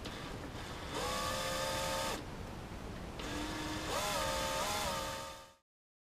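Cordless drill/driver driving screws into a stormtrooper helmet's plastic ear cap, whining in two runs; the second starts slow and low, rises in pitch and wavers, as the nearly flat battery struggles, then cuts off suddenly.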